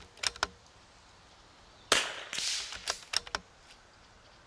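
A Vudoo bolt-action .22 LR rifle fires a single shot about two seconds in, the report trailing off over about half a second. A few quick, sharp clicks come just after the start and again about a second after the shot, like the bolt being worked between shots.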